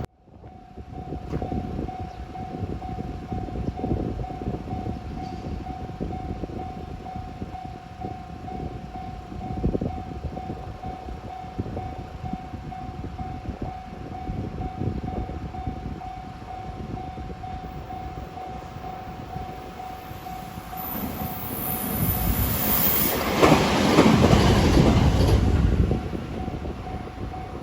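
Level-crossing alarm ringing steadily. A 521 series electric train approaches and passes over the crossing near the end, growing loud and then easing off.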